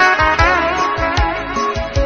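Instrumental music: a guitar plays a melody with wavering vibrato notes over bass and a drum beat.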